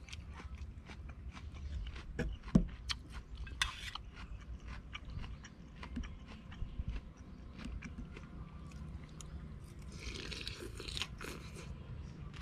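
Close-up eating sounds: a person chewing and crunching a mouthful of rice noodles and raw vegetables, with many small clicks of cutlery on the plate. A louder knock comes about two seconds in, and a burst of crunching near the end.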